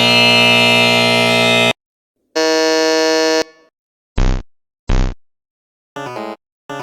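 A run of wrong-answer quiz buzzer sound effects: a harsh buzz lasting nearly two seconds, a second buzz about a second long, two short low blips, and two short stepped tones near the end.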